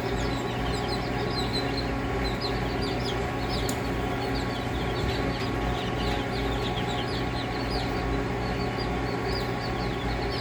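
A crowd of newly hatched chicks peeping continuously, many short high downward-sliding peeps overlapping, over a steady low hum.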